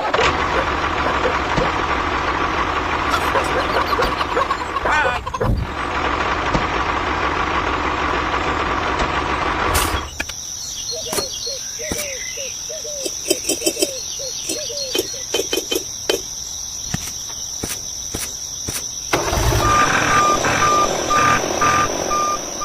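Truck engine running for about the first ten seconds. Then a quieter stretch with a steady high whistle and a run of short squeaky calls. The engine comes back with a reversing beeper sounding evenly near the end.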